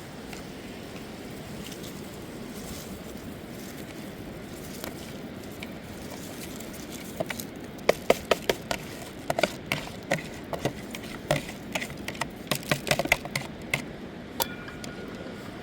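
A quick, irregular run of sharp knocks and cracks, like hard objects being struck or handled, over a steady rushing noise; the knocks start about halfway through and stop shortly before the end.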